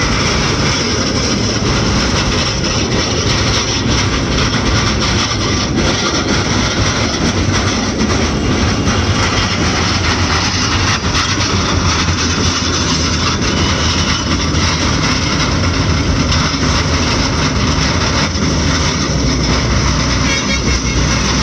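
Heavy truck trailer rolling slowly along the road on a flattened tyre, giving a steady, loud rumble.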